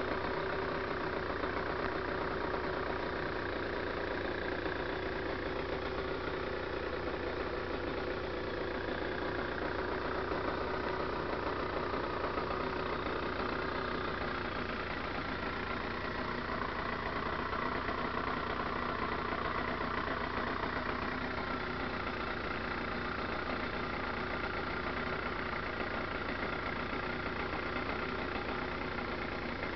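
Sachs ZX125's 125 cc two-stroke motorcycle engine running at a steady cruise while being ridden, heard from on the bike.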